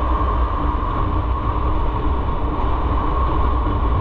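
Motorcycle running steadily at riding speed, its engine rumble mixed with steady road and wind noise.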